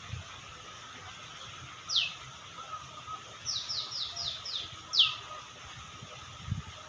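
A bird calling: a sharp high note sweeping downward about two seconds in, a quick run of five short falling notes, then another loud falling note about five seconds in.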